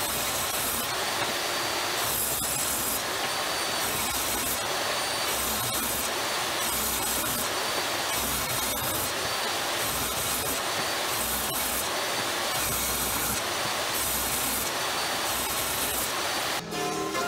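Table saw ripping thin strips from old hardwood floorboards, running steadily, its cutting noise swelling about once a second as each pass goes through the blade. Music comes in near the end.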